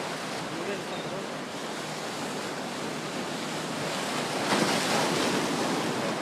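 Steady rush of surf and wind, swelling louder for about a second around four and a half seconds in.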